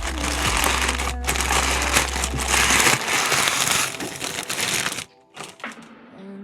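Packaging crinkling and rustling as it is handled and unwrapped, over background music. The rustling stops about five seconds in, leaving a few short clicks.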